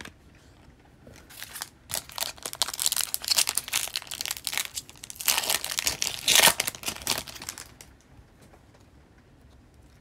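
Foil wrapper of an O-Pee-Chee Platinum hockey card pack being torn open and crinkled by hand: a dense crackling rustle starting about a second and a half in, loudest around six seconds, and stopping shortly before the end.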